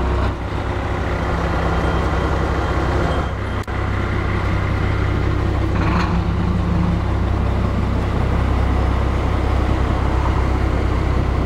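A motor vehicle's engine idling steadily, a continuous low rumble.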